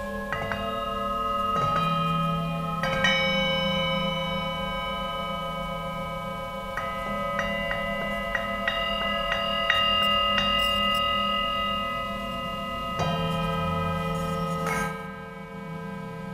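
Four handmade 16 cm Tibetan singing bowls struck one after another with mallets, each strike leaving a long ringing tone that overlaps the others. A quicker run of strikes comes in the middle, and the ringing fades somewhat near the end.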